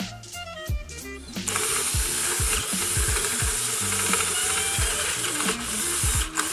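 Cordless drill boring into a wooden board, a steady cutting whir that starts about a second and a half in and breaks off briefly near the end. Background music with a steady beat underneath.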